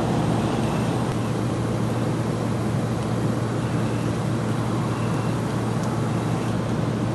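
Steady drone of running machinery: a constant low hum with an even rushing noise over it.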